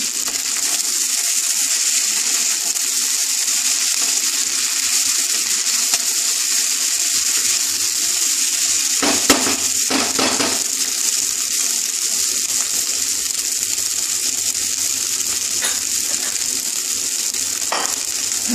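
Pasta and vegetables sizzling in hot oil in a pan, a steady hiss. A wooden spatula stirs and scrapes the pan a few times about nine to ten and a half seconds in.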